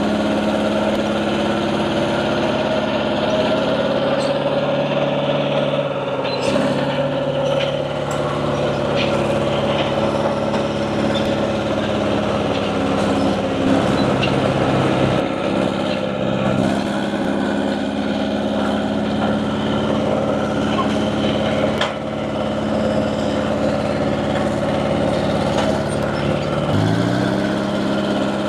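Dresser TD7E crawler dozer's diesel engine running steadily while it works, the note sagging briefly a few times under load. Near the end the engine note drops and then rises back up.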